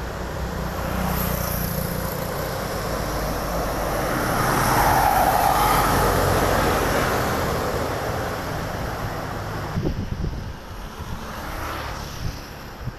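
A road vehicle passing close by on the highway. The engine and tyre noise swells to a peak about five seconds in and fades away, with a few short knocks near the end.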